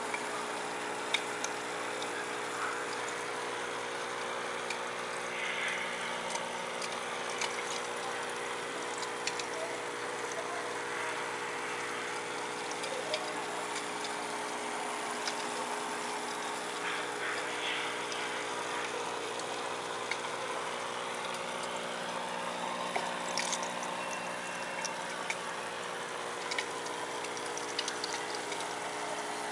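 Aquarium pump humming steadily under a hiss of moving water, with scattered small clicks.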